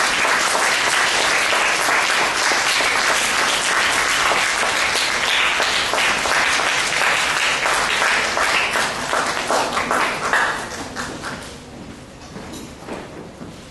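Audience applauding steadily, then dying away about ten to eleven seconds in to a few scattered claps.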